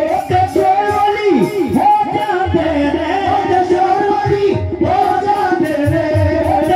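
Live Punjabi Sufi devotional music: a group of men singing a wavering melody into microphones over steady held instrumental notes and a regular hand-drum beat, heard loud through a PA system.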